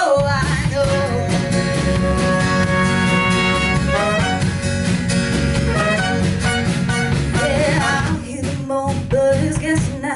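A band playing live, in a stretch with no sung words, with held melodic notes over a steady beat.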